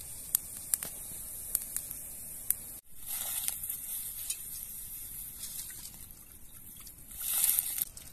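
A pot of water boiling hard over a wood fire, with the fire giving off sharp crackling pops. Near the end comes a louder rushing splash as something is poured into the boiling pot.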